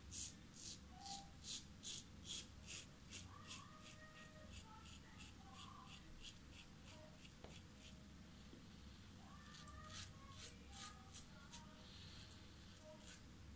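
Mühle R89 closed-comb safety razor with a Personna Platinum blade scraping through lathered stubble in short, quick strokes, about two or three a second. The strokes thin out for a few seconds past the middle, then pick up again.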